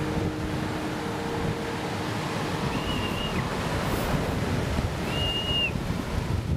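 Ocean surf: waves breaking and washing up a beach as a steady rushing noise. Two low held notes fade out in the first two seconds, and two short high whistles sound about three and five seconds in.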